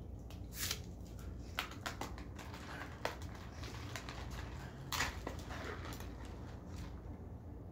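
Paper straw wrapper rustling and tearing as a drinking straw is unwrapped and pushed into a plastic fountain-drink lid: a handful of short, sharp rustles and clicks, the loudest about five seconds in, over a steady low hum.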